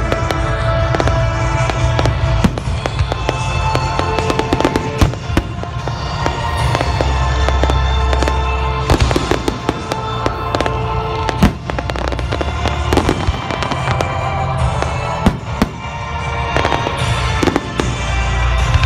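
Fireworks display: aerial shells bursting in a rapid, irregular series of sharp bangs, over music with steady held tones.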